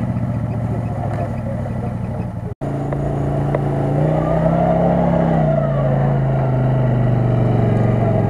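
CFMoto CF-800 side-by-side's V-twin engine running hard through mud and water, its pitch rising and falling as the throttle is worked. The sound drops out for an instant about two and a half seconds in, then carries on with two swells of revving.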